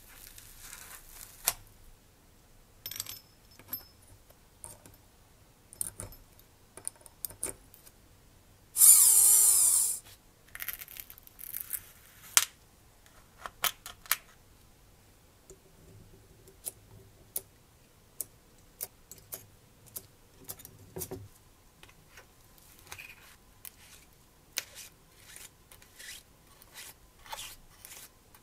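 Tweezers and small metal engine-kit parts clicking and tapping as they are picked out of foam trays and a plastic parts box, in a string of separate sharp ticks. About nine seconds in there is one louder rasping noise lasting about a second.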